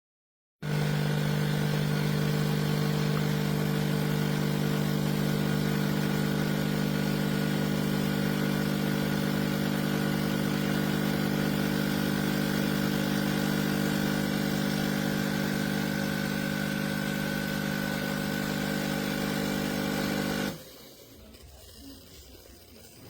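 Philips Baristina espresso machine running with a steady hum. It starts abruptly, holds for about twenty seconds, and cuts off suddenly.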